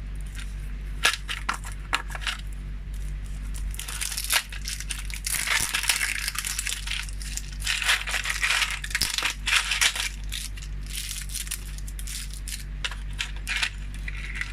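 Small metal engraving bits and their case being handled: irregular clicks and rattling, with a denser stretch of clatter and rustling in the middle.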